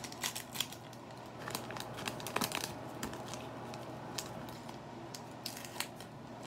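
Baseball cards and pack wrapper being handled: scattered light clicks, snaps and crinkles, a cluster of them about two and a half seconds in. A steady air-conditioner hum runs underneath.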